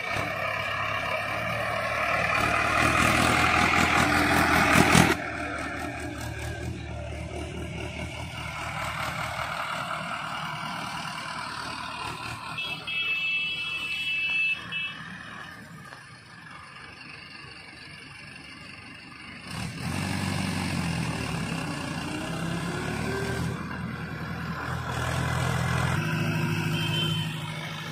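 Mahindra Arjun 555 tractor's four-cylinder diesel engine running under load while hauling a loaded tipping trolley. It revs harder in the first few seconds, then its note changes abruptly twice where the footage is cut.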